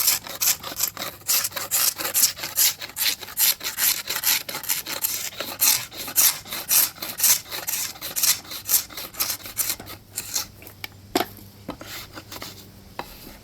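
Hand scraper dragged over old wood trim in quick repeated strokes, about three a second, lifting layers of paint softened by chemical stripper. The strokes thin out and weaken after about ten seconds.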